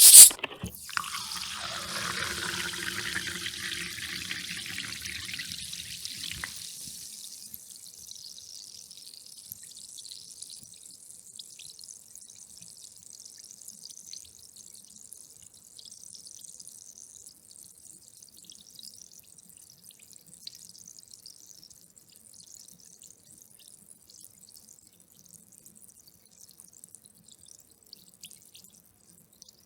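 Carbonated sparkling water: a short loud hiss at the start, then pouring into a glass for about six seconds. After that the bubbles keep fizzing and crackling, slowly fading.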